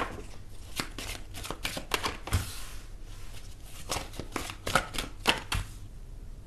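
A deck of tarot cards being shuffled by hand: quick papery snaps and flicks in two bursts, one about a second in and one around four seconds in.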